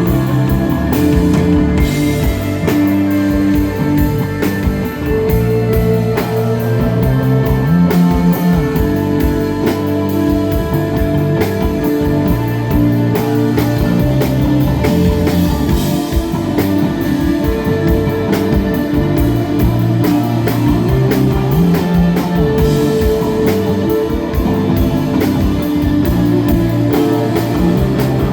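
Live instrumental psychedelic desert rock: electric guitar notes ringing over a bass line and a drum kit keeping a steady beat, with no vocals.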